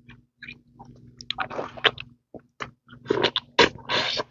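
Wet chewing and lip smacking from eating a seafood boil, as irregular sharp clicks with two longer, juicier stretches of mouth noise in the middle and near the end.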